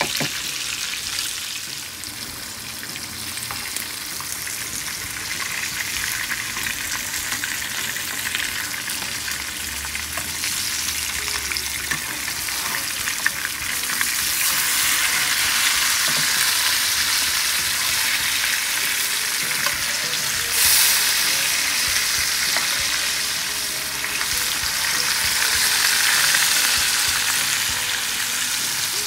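Marinated striped bass fillets sizzling in hot oil in a nonstick frying pan, a steady crackling hiss. It grows louder about halfway through as the fillets are turned over, with a brief louder flare a few seconds later.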